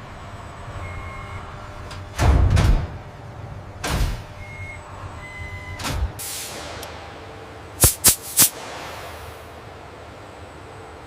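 Workshop machinery over a steady low hum: a loud clunk with a hiss about two seconds in, further thuds near four and six seconds, a few short high beeps, and three quick sharp clicks near eight seconds.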